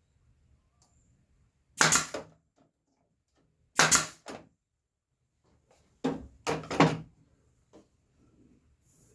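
Four short, loud bursts from a woodworking power tool working on wood, about two seconds apart, the last two close together, with quiet in between.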